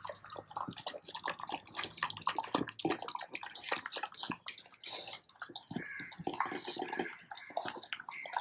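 Dog eating a wet mix of raw meat from a stainless steel bowl: quick, irregular slurping, lapping and chewing sounds.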